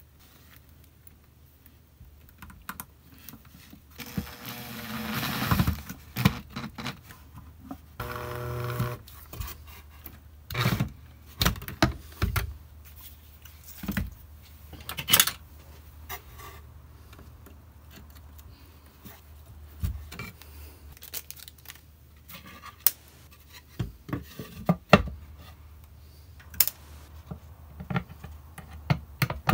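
Irregular clicks, taps, scrapes and rustles of hands handling a wooden nest box, a cordless drill/driver and small parts on a workbench.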